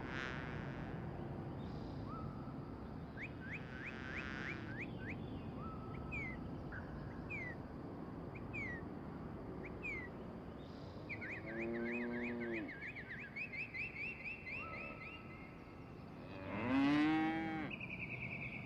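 Small birds chirping throughout in short, quick notes. Two long, low, drawn-out animal calls rise and fall, one about twelve seconds in and a louder one near the end.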